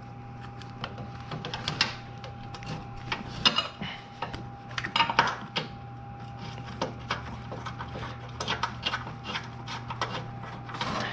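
Irregular metallic clicks, clinks and scrapes of hand tools and a bolt being worked into an engine mount, over a steady low hum with a thin high tone.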